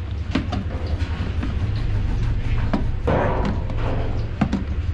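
A knife cutting open a plastic cooking-oil jerrycan: scraping with sharp cracking clicks, and a harsher rasp of the blade through the plastic about three seconds in.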